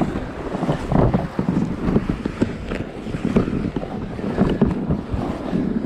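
Wind blowing across the microphone: a continuous rough rushing noise with irregular gusty peaks.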